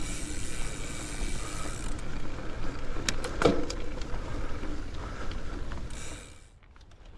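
Mountain bike rolling over a dirt single-track trail: steady tyre and riding noise with a low rumble, a few rattles and one sharp knock about three and a half seconds in. The noise drops away suddenly near the end.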